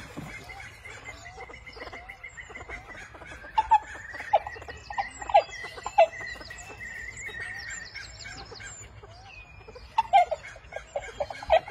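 Inca terns calling: short, harsh clucking call notes in scattered clusters, loudest around the middle and again near the end.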